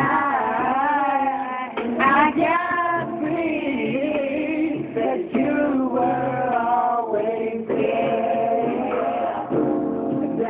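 Singing with musical accompaniment: a voice carrying a melody over a backing of held notes.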